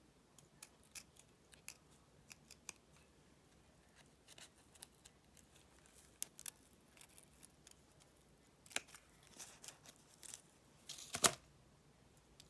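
Small scissors snipping fabric: scattered short, crisp snips, coming thicker near the end, with a louder rustle of handled fabric about eleven seconds in.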